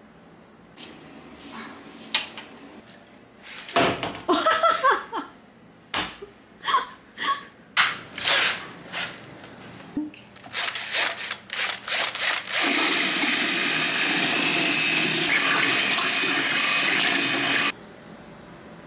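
A drill with a mixing paddle stirring a bucket of ceramic glaze runs at a steady level for about five seconds and cuts off abruptly. Before it come scattered knocks and clatter from handling the bucket and tools.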